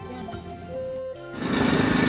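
Background music with steady sustained notes. About one and a half seconds in, a much louder, rapid pulsing rattle of a small engine cuts in over it.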